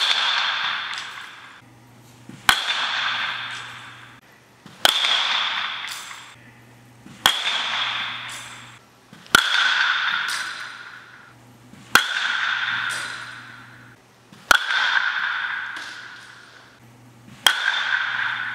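Metal baseball bat hitting pitched baseballs during batting practice: eight sharp cracks about every two and a half seconds. Each crack has a ringing ping that echoes and dies away over a second or two.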